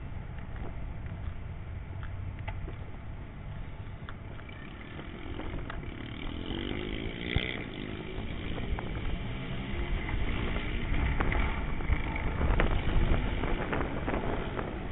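A vehicle engine running and shifting in pitch in the middle, over a steady low rumble of wind on the microphone, with a few scattered clicks.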